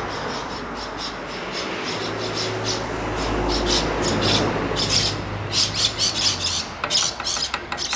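A wooden spoon stirring thick curry in a cast-iron camp oven, with birds squawking again and again over it. A low hum swells up in the middle and fades out.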